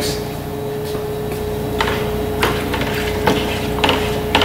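A rod stirring premixed coolant in a plastic bucket, knocking against the bucket about five times, roughly every half second, from about two seconds in, over a steady hum.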